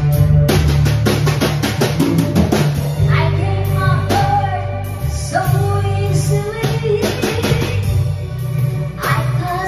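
Karaoke: a woman sings into a microphone over an accompaniment with a drum kit. The opening seconds are drums and instruments only, and the voice comes in about three seconds in.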